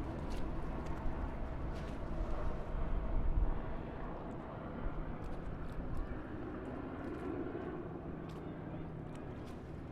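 Highway traffic, a steady low rumble of passing vehicles, with one vehicle passing louder about three seconds in.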